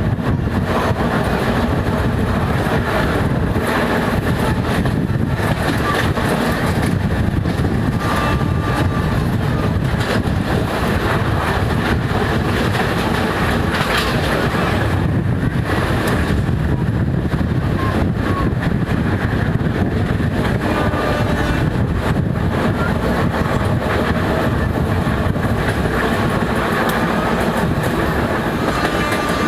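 Rail vehicle running on track, with a steady, continuous clatter of wheels on rails.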